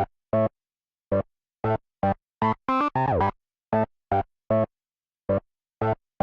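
Synthesizer or electric keyboard music: short, cut-off chord stabs separated by silent gaps, with no singing.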